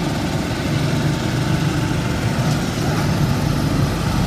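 Small engines of several motorised bumper boats running together in a steady low drone.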